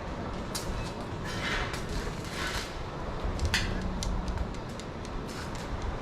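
Arc welding on steel roof supports overhead: short hissing, crackling bursts of a fraction of a second each, like tack welds, with a sharp click about three and a half seconds in.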